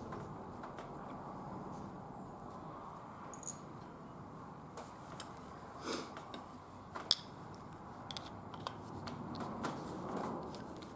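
Light metallic clicks and taps of small steel wheel-lock parts being handled, scattered and irregular, with the sharpest click about seven seconds in.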